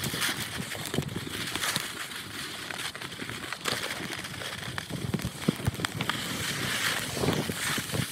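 Skis sliding and scraping over snow with wind on the microphone, a steady rush broken by short crackles from the ski edges, sped up to double speed.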